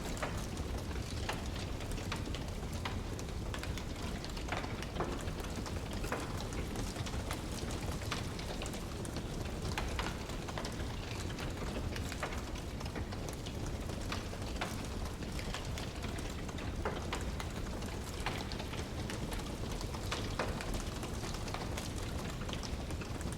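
Wood fire burning, with irregular sharp crackles and pops over a steady low rushing noise.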